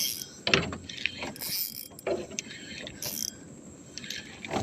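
Fishing reel working, its gears and ratchet clicking and whirring in uneven short bursts as line is reeled in with a fish on.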